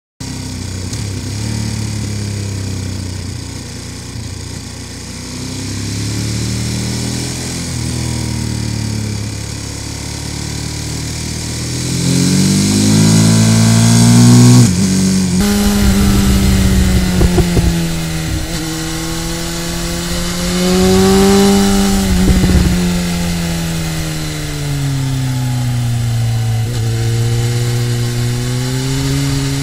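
Onboard engine sound of sport motorcycles at speed on a mountain road: the Ducati Monster 1200S's L-twin pulls up through the revs and drops back as it shifts. About halfway through the sound cuts to the BMW S1000R's inline-four, louder, rising and falling repeatedly through the bends.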